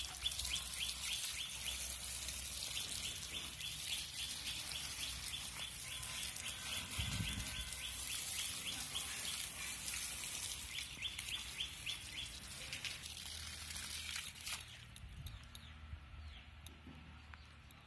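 Water from a garden hose splashing steadily onto dry soil and leaf litter, stopping about fifteen seconds in. Rapid repeated chirps come and go during the first twelve seconds.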